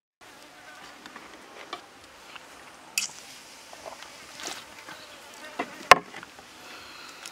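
Faint buzzing of insects over quiet outdoor ambience, broken by sharp knocks of cooking things being handled and set down on the wooden table: a loud knock about three seconds in and a sharper, louder clack about six seconds in.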